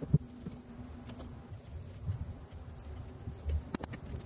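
Light handling noise: scattered small clicks and taps, with one sharp click just after the start.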